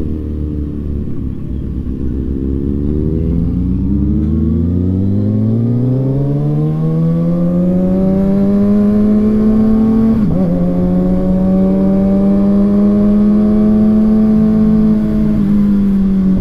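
Inline-four sport motorcycle engine accelerating: its pitch climbs smoothly over several seconds, then holds steady at cruising revs, with a brief dip about ten seconds in.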